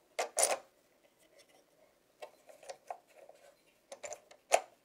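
Handling noise from an LED video light being turned over by hand: a few light knocks and clicks on its housing, the loudest about half a second in and one sharp knock near the end.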